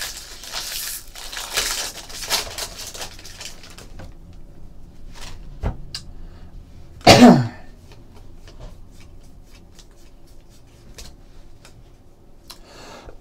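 Foil trading-card pack wrapper crinkling and tearing open for the first few seconds, followed by light ticks of cards being handled. A man coughs once, loudly, about seven seconds in.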